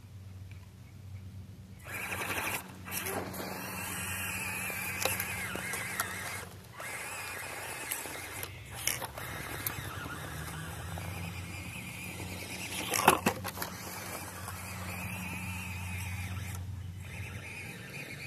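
SCX24 Jeep Wrangler RC crawler's small electric motor and gears whining as it climbs, starting about two seconds in and dropping out briefly a few times as the throttle is let off, with the tyres scraping over dirt and rock. A sharp knock about thirteen seconds in is the loudest moment.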